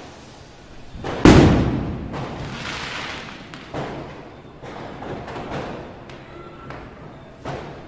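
Firecrackers going off: one loud bang about a second in that echoes away, followed by a scatter of smaller, fainter cracks and pops.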